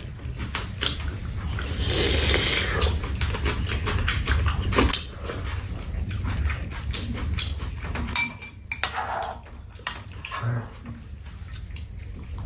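People eating with metal spoons and chopsticks: chewing and mouth noises, with many small clicks of spoons against bowls.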